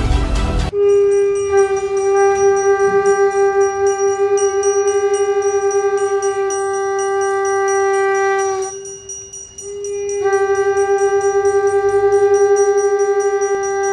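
Ritual conch shell blown in long, steady single-pitch blasts with a fast flutter: one of about eight seconds, a short break, then a second blast. Loud ensemble music cuts off abruptly just before the first blast.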